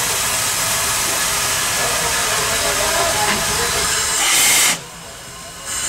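Steam hissing out at a steam locomotive's cylinders as steam is let in to pressurize the pistons before moving off. A steady loud hiss cuts off sharply nearly five seconds in, then a short blast of hiss comes near the end.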